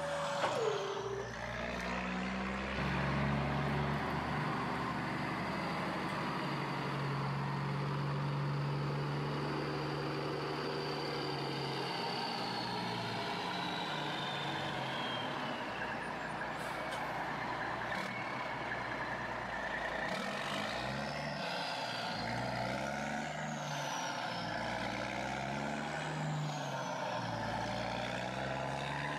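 Truck engine sound effect running continuously, its pitch shifting up and down, with a few high whines that fall in pitch.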